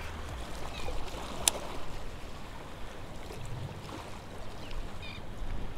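Calm sea water washing gently against the rocks of a stone jetty, a low, even wash, with a single sharp click about a second and a half in.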